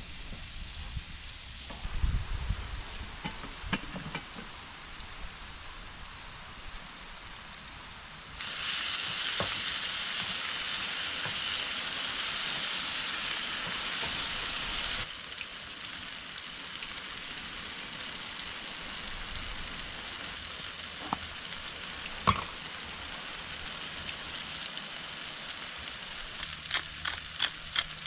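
Chopped eggplant and bell pepper sizzling as they fry in a pan on a portable gas camping stove, stirred now and then with a wooden spatula. The sizzle is much louder for several seconds in the middle, and a single sharp tap is heard about two-thirds through.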